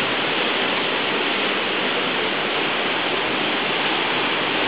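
Steady, even rushing of the sea alongside and behind a cruise ship, heard from an open stern balcony.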